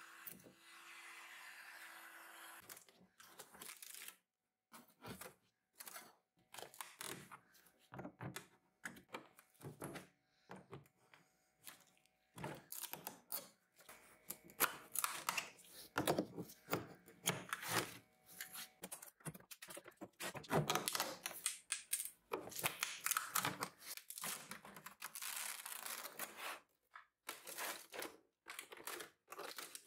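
A metal putty knife scraping and prying at old wood, with the thin surface layer and panels cracking and tearing away in irregular short scrapes and knocks. A steady hum runs for the first two or three seconds, then stops.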